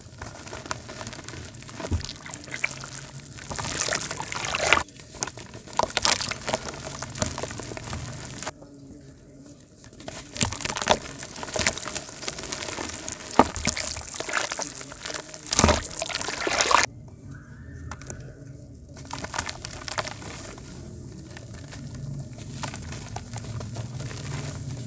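Dried mud shapes crumbled by hand into a tub of water: crackly crunching as the lumps break, with crumbs and powder pattering and pouring into the water. It comes in bouts, with two short lulls.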